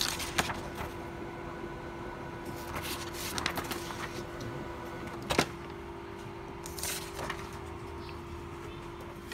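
HP Color LaserJet Pro M479 laser printer running with a steady hum and a few light clicks, ending in a loud clack near the end as the hum drops away.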